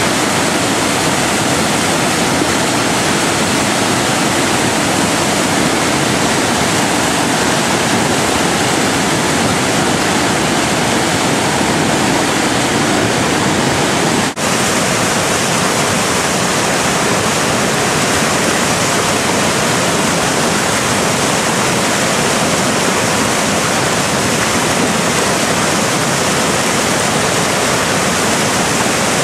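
Steady rush of large whitewater river rapids, with a momentary break about halfway through.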